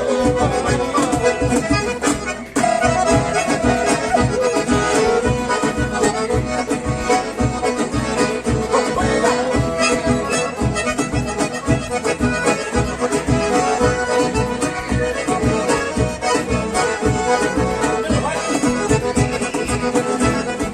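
Accordion-led bandinha dance music with a steady beat; the music briefly drops out about two and a half seconds in, then carries on.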